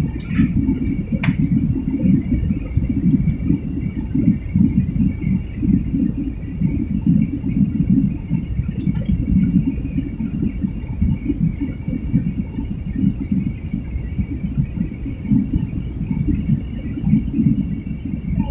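Jet airliner cabin noise during the climb after takeoff: a steady low rumble from the engines and airflow, with a faint steady high whine above it. A couple of light clicks sound about a second in.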